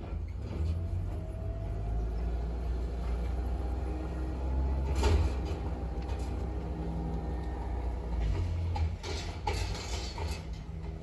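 Low, steady vehicle rumble with a few scattered knocks and clanks.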